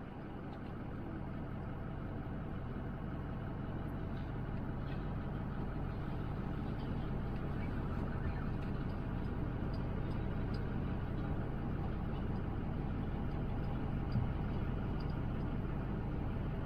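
Steady engine and road noise of a motorhome on the move, swelling over the first few seconds and then holding even.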